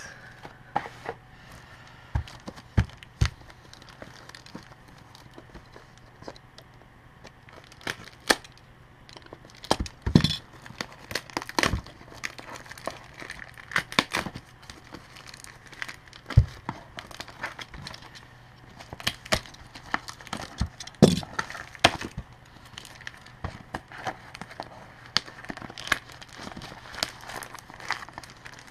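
Plastic packaging crinkling and rustling as bike pedals are unwrapped by hand, with irregular sharp clicks and knocks from the wrapping and box being handled.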